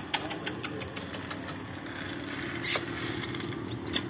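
A steady motor hum that grows a little louder about two seconds in, with scattered sharp clicks and taps and one louder rustle near the middle.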